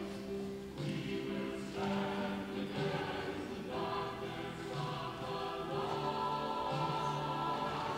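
Voices singing a hymn together in slow, held notes that change about once a second.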